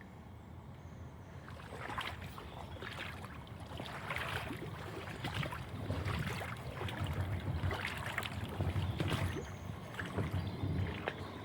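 Floodwater splashing and rushing in irregular bursts that pick up after about two seconds, over a low rumble of wind on the microphone.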